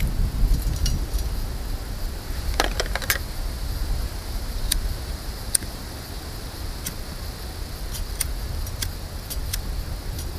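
Wind rumbling on the microphone, with scattered sharp clicks, a few close together about three seconds in and then single ones about once a second, as a lighter is struck to light a wood stove.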